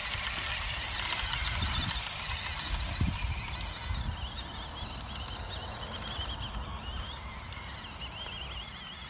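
WPL C24-1 RC truck's small stock brushed motor and gearbox whining as it drives through grass and up small hills. The whine holds a steady high pitch at first, then wavers up and down and fades in the second half as the throttle varies. A couple of low thumps come in the first few seconds.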